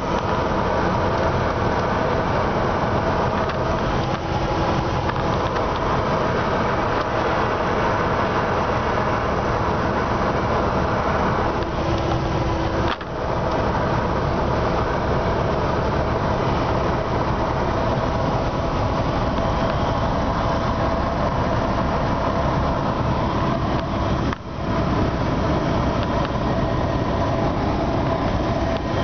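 Cessna 172's piston engine and propeller heard from inside the cabin, a loud steady drone mixed with wind noise during the landing approach. The sound drops out briefly twice, once near the middle and once near the end.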